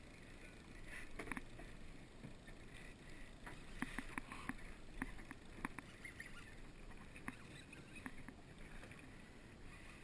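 Water lapping against a boat's hull, with scattered small ticks and clicks.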